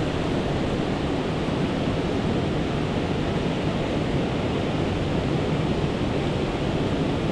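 Steady, even rushing noise of outdoor ambience, heaviest in the low range, with no distinct events.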